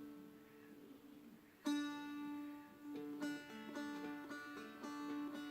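Seagull Merlin M4, a four-string dulcimer-style instrument, being fingerpicked. A chord rings and fades, a new note is struck about a second and a half in, and then single strings are picked one after another in an even pattern over a ringing drone string.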